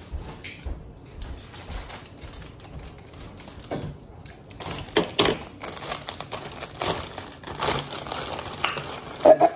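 Irregular crunching and crinkling of a bag of chips being opened and eaten close to the microphone.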